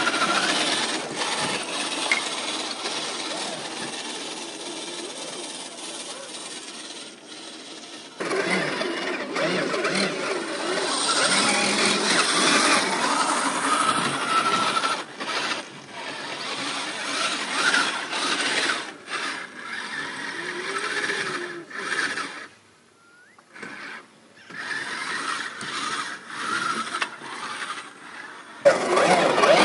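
Electric RC scale crawler trucks climbing a dirt and rock slope: motor and gear drivetrain whine rising and falling with the throttle, over a steady mechanical clatter. The sound changes abruptly a few times, and there is a brief near-quiet gap about two-thirds of the way through.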